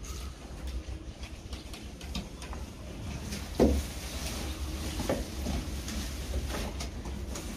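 Rustling and crackling of a large armful of fresh green fodder being carried and dumped into a wooden feeding trough, with one loud thump about three and a half seconds in. A low rumble of wind on the microphone runs underneath.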